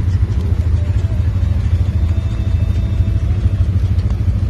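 Side-by-side UTV engine idling steadily, a rough, even low rumble.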